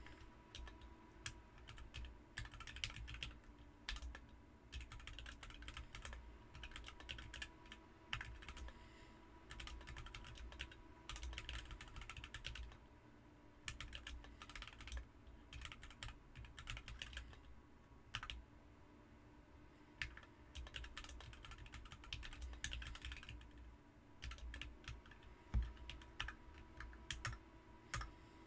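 Continuous typing on a BM43 40% mechanical keyboard fitted with Ms Piggy switches: quick runs of keystroke clacks in bursts with short pauses between them. One keystroke late on is noticeably louder.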